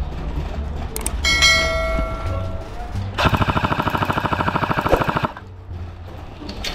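A bell-like notification chime rings about a second in, fading over a second and a half. Then a CYMA AK airsoft electric rifle fires on full auto in one rapid, even burst of about two seconds.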